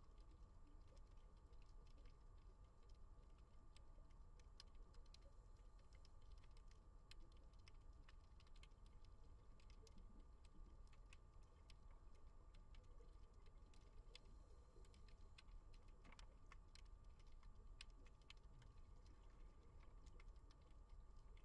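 Faint underwater ambience: scattered tiny clicks and crackles over a low, steady rumble.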